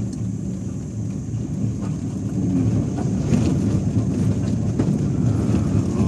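Car engine and tyre noise heard from inside the cabin, a steady low rumble as the car climbs a hill.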